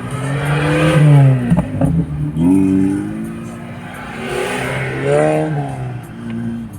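Car engine revving up and easing off three times as the car is driven, with a brief drop and a few clicks about a second and a half in.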